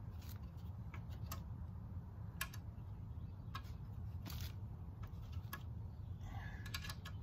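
Light, irregular metal clicks of a hand tool in a bolt head, roughly one a second, as a bolt is hand-tightened into a teak chair frame, over a low steady rumble.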